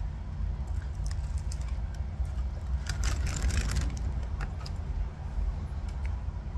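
Steady low rumble and hum of outdoor street background, with a brief cluster of crackling clicks about three seconds in.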